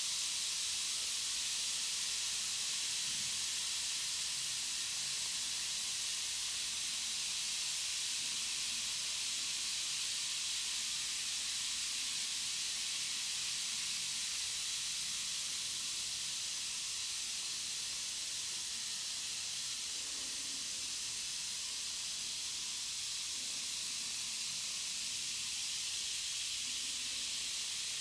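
Carbonated bath bomb fizzing as it dissolves in water, a steady even hiss.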